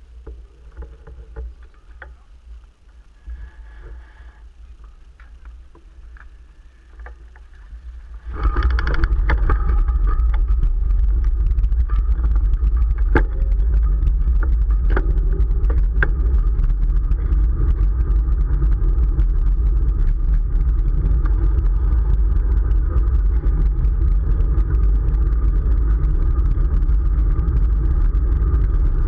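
Wind and road noise on a camera microphone riding along with a bicycle: a low rumble that jumps suddenly, about eight seconds in, to a loud steady roar of rushing air.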